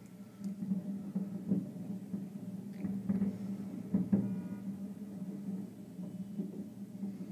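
Distant fireworks going off, heard from inside a hotel room high over the city: several dull booms, the loudest about four seconds in, over a steady low hum.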